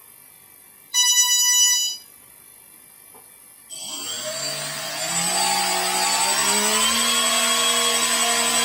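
An electronic speed controller beeps once through the brushless motors, a single tone lasting about a second. About four seconds in, the quadcopter's brushless motors spin up under throttle with a rising whine, then run steadily with their propellers turning.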